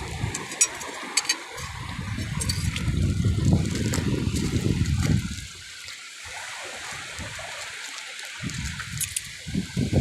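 Shallow seawater sloshing and trickling, with an irregular low rumble that drops away about five seconds in and returns near the end.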